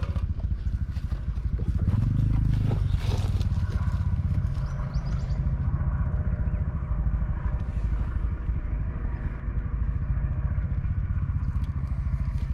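Adventure motorcycle engine running steadily at low revs, with a brief louder stretch about two seconds in.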